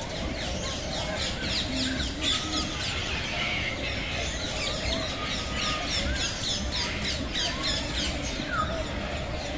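Many small birds chirping and squawking at once, a dense chorus of short, quick downward-sweeping calls that overlap without a break.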